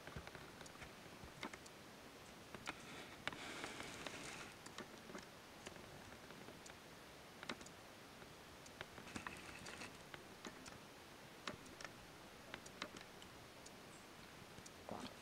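Faint, scattered small clicks and ticks with a couple of brief soft rustles, over a quiet background.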